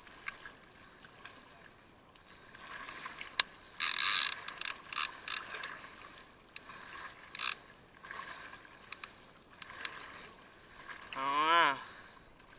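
A fishing reel working in short bursts, its gears and drag whirring and clicking under the load of a big fish on the line. A brief wavering, pitched sound comes near the end.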